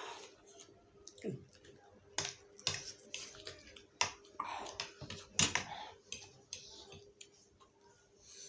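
A person eating spicy Korean fire noodles: irregular wet clicks and smacks of chewing, with a few louder wet bursts between about two and six seconds in.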